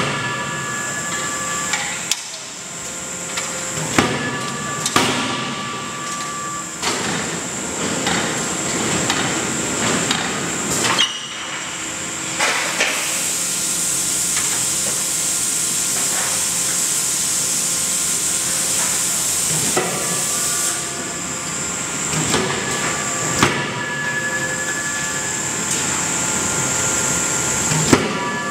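Die forging hammer striking heated billets with sharp metallic blows at irregular intervals, several in the first half and a few more near the end. A long hiss runs for about eight seconds in the middle, over the steady hum and whine of forging-line machinery.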